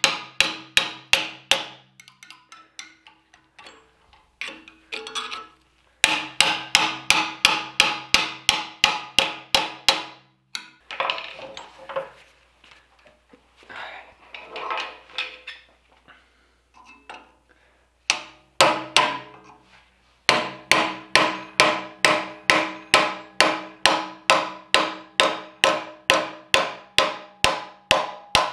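Hand hammer rapidly striking a chisel driven into the seam of a steel billet clamped in a vise. The ringing metal strikes come about four a second, in long runs with pauses between. The chisel is splitting the outer layers off a five-layer go mai billet where they failed to forge-weld and delaminated.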